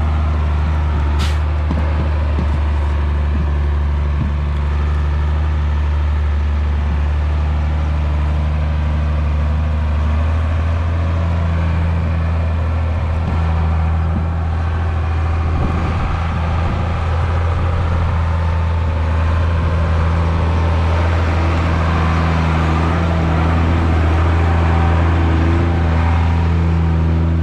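Mercedes-Benz Unimog U1700L truck's diesel engine running at low, steady revs as it crawls along a rutted, muddy sand track, getting a little louder near the end as the truck comes close.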